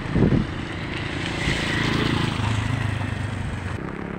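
A motor engine droning steadily, a little louder in the middle and fading near the end, with wind buffeting the microphone in the first half-second.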